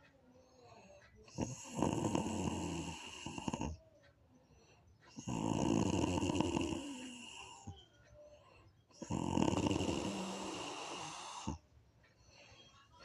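Snoring: three long snores of about two and a half seconds each, coming at a steady pace of roughly one every four seconds, with fainter breathing between them.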